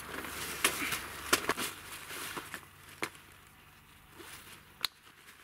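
Rustling and scattered clicks of items being handled as a person rummages through bags, busier in the first couple of seconds, with one sharp click near the end.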